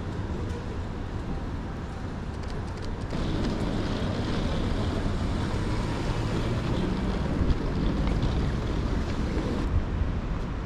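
City street traffic noise: a vehicle passes, swelling from about three seconds in and fading near the end, with a low engine hum over tyre and road hiss.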